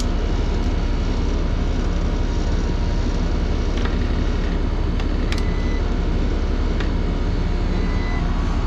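Ruud condenser running steadily after its refrigerant charge, a low hum under an even rush of air, with a few faint clicks. The charge is about where the tech wants it, and the compressor is drawing only about 5 amps.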